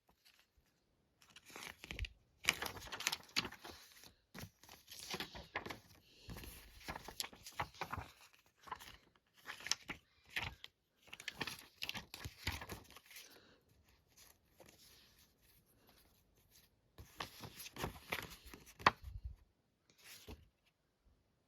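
Paper ad inserts from a VHS case being handled and unfolded, rustling and crinkling in irregular bursts, with a pause of a few seconds past the middle.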